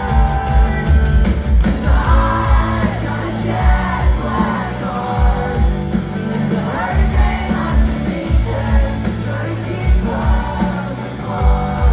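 Rock band playing live on electric guitars, bass and drums, with a steady pounding kick drum and a sung lead vocal, heard from within an arena crowd on a phone microphone.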